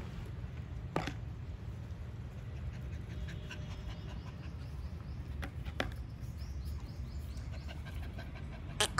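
Puppies panting as they come up close, over a steady low rumble, with a few sharp clicks, the loudest near the end.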